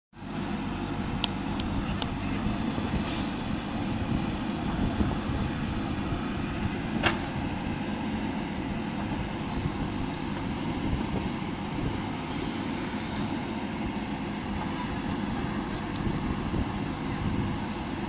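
JCB backhoe loader's diesel engine running steadily under load while the backhoe arm digs, with a few short sharp clicks, the sharpest about seven seconds in.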